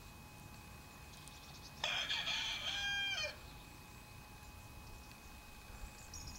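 A rooster crows once, a single call of about a second and a half that starts about two seconds in and falls in pitch at its end.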